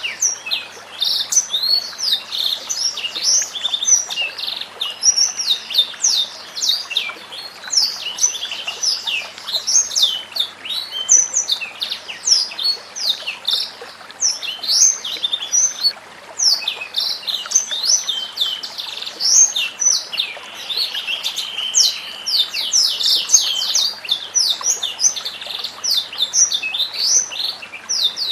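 White-rumped shama (murai batu) singing a long, unbroken run of rapid whistled notes and quick pitch sweeps.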